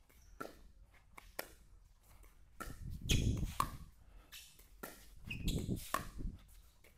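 Pickleball rally: paddles and bounces hitting a hollow plastic ball with sharp pops at uneven intervals, with shoe squeaks on the court. Two longer, louder bursts of scuffing footwork come about three seconds in and again about five and a half seconds in.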